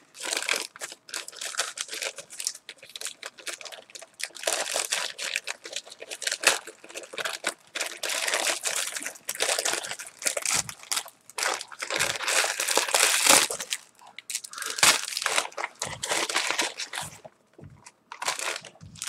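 Paper and plastic packaging crinkling and tearing as a small package is unwrapped by hand. The rustling comes and goes irregularly, with a short lull near the end.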